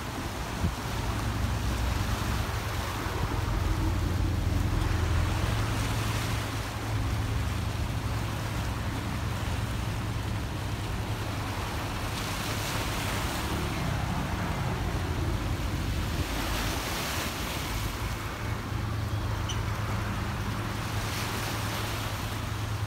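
Wind buffeting the microphone with a steady low rumble, over a hiss of wind and harbour water that swells and fades in gusts every few seconds.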